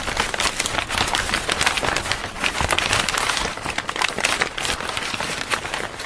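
Dense, steady crackling noise made of many tiny clicks, a crackle sound effect under a channel logo animation.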